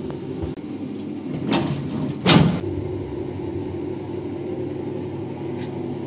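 Passenger lift's stainless steel sliding doors closing with a thud about two seconds in, over a steady hum inside the lift car.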